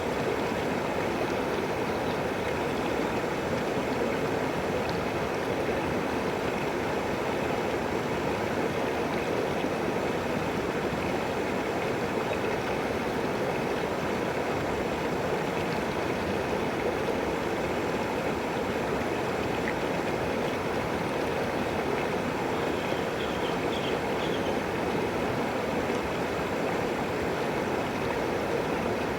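River water flowing steadily, an even rushing sound with no pauses or changes in level.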